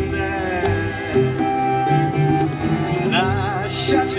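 Live acoustic band music: accordion holding long notes over strummed acoustic guitar, plucked double bass and hand percussion, in a slow song.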